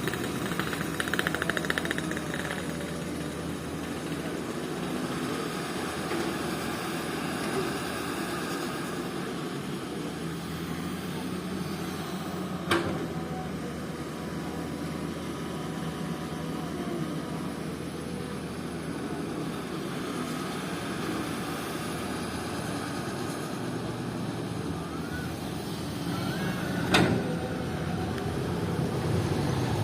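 Komatsu PC200 hydraulic excavator's diesel engine running steadily as it works, with two sharp knocks, one about halfway through and one near the end.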